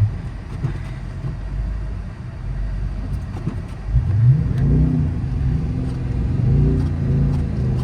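Dodge Charger R/T's 5.7-litre Hemi V8 rumbling at low revs, then revving up sharply about four seconds in and held there as the rear tyres spin in deep snow.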